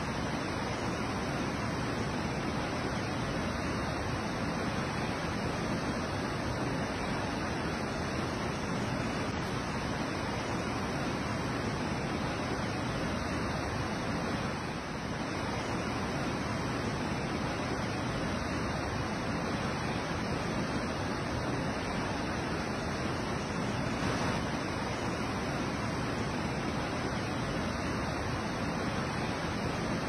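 Waterfall rushing and splashing into a pool: a steady, dense roar of falling water, dipping briefly about halfway through.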